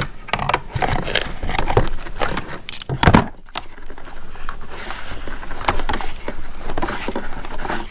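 Irregular clicks, taps and rustling as hands work ratchet straps loose from their cardboard packaging and twist ties, with one sharper knock about three seconds in.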